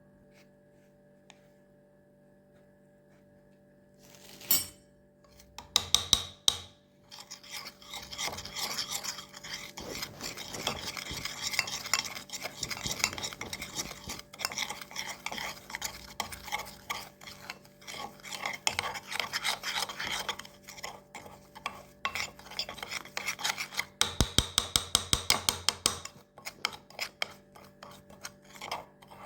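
Fast scraping and rubbing strokes of a spoon stirring a charcoal-and-lemon paste in a small dish. A few sharp taps come first, about five seconds in, and a quicker run of strokes comes near the end.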